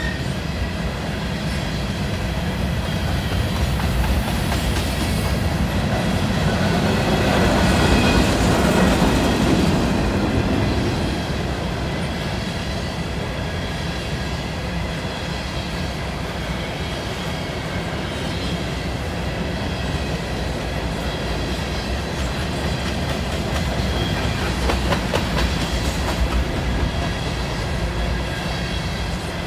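Norfolk Southern covered hopper cars of a grain train rolling past in a steady rumble, swelling louder about eight seconds in, with the wheels clacking over rail joints near the end.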